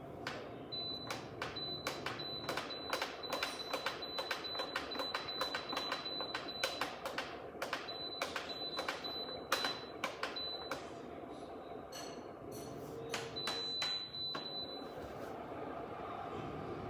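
Irregular clicking, several clicks a second, over a steady high-pitched electronic tone that starts about a second in, breaks off twice and stops near the end, with a low steady hum underneath.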